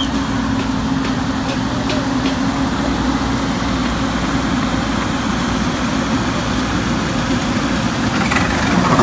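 Diesel engine of a JCB 220 LC tracked excavator running steadily at a constant speed.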